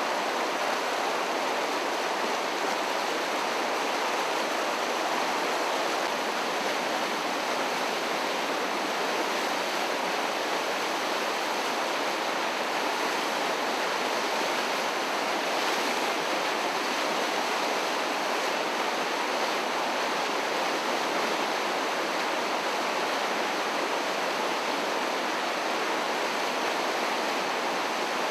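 A creek in flood, fast water rushing steadily without a break.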